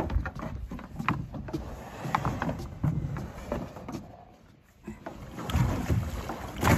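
Irregular knocks and low thumps of a kayak being handled, with rustling and wind on the microphone; a sharper knock comes near the end.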